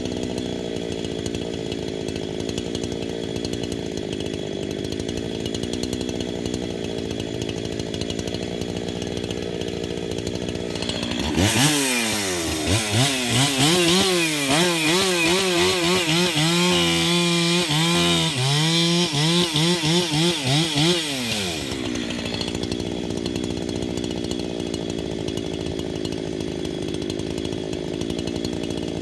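Husqvarna 372XP two-stroke chainsaw idling, then opened up to full throttle about a third of the way in. For about ten seconds its pitch dips and recovers over and over as it bucks through a big fir log, then it drops back to idle.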